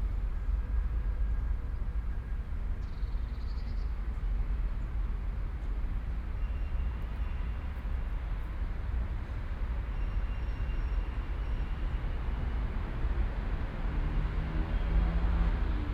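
City park ambience: a steady low rumble of distant traffic, with a few faint high bird calls. Near the end a vehicle engine grows louder as it comes closer.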